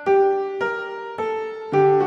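Background piano music: single notes struck about twice a second, each fading away, with lower notes coming in near the end.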